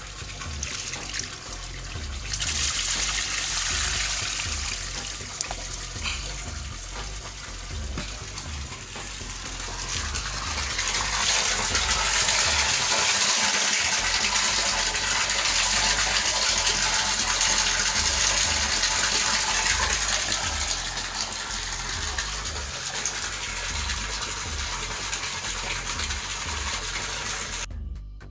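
Water gushing steadily into a tarpaulin fish pond, getting louder about two seconds in and again about ten seconds in, then cutting off just before the end.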